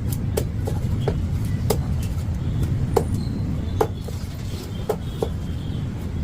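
Sharp knocks at irregular intervals, about eight of them, from a knife striking a chopping block as a barramundi is cut up, over a steady low rumble.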